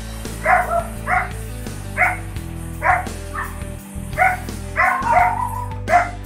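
A dog barks repeatedly, about nine barks spaced half a second to a second apart, over steady background music.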